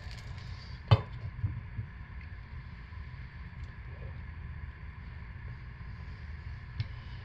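Cutting soap on a wooden wire soap cutter: one sharp knock about a second in, then a couple of lighter knocks, as the loaf and bars are pushed and set down on the cutter, over a steady low hum.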